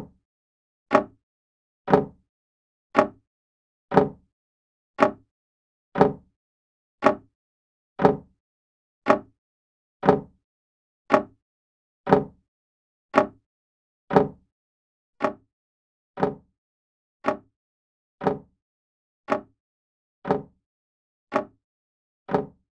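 Old grandfather clock ticking steadily, about one tick a second: the escapement clicking as the pendulum swings.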